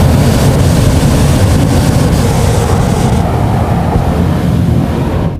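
Hot-air balloon's propane burner firing in one long, loud blast that cuts off suddenly near the end. The pilot is adding heat to lift the balloon so it can be moved after landing.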